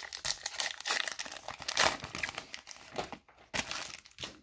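Crinkling and tearing of a 2018 Topps Heritage High Number baseball card pack wrapper as it is torn open by hand. The dense crackle lasts about three seconds, then a brief pause and a few last crinkles.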